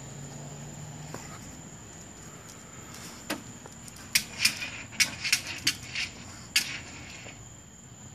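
A dog's claws tapping and scraping on a glass tabletop as it jumps up and rests its front paws on the table: a quick run of sharp clicks starting about four seconds in and lasting some two and a half seconds.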